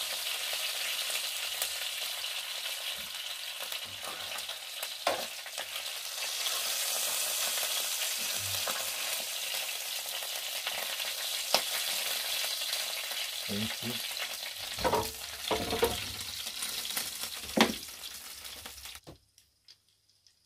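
Meat sizzling steadily in hot oil in a nonstick frying pan on an electric hotplate, with a few sharp clicks of metal tongs against the pan as pieces are turned and lifted. The sizzle cuts off suddenly near the end.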